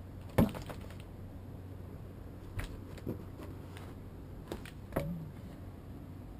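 A handful of sharp clicks and crackles as a stiff woven Kevlar hybrid sheet is pressed and flexed by hand, the loudest about half a second in, over a low steady hum.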